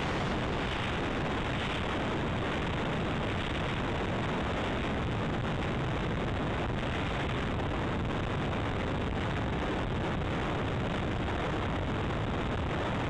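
Steady rushing wind noise over the onboard camera of a flying FPV Raptor model plane, with no motor whine or other pitched sound standing out.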